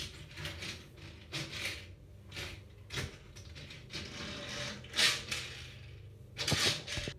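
Box braids rustling and swishing as they are handled and shaken loose, brushing against each other and clothing in a series of swishes, the loudest about five seconds in.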